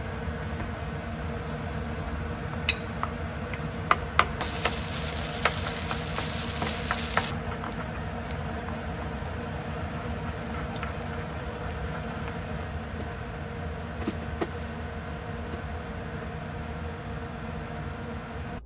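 Food frying in nonstick pans on a gas stove: a low sizzle with utensils tapping and scraping the pan, over a steady background hum. A brighter, louder sizzle lasts about three seconds, a few seconds in.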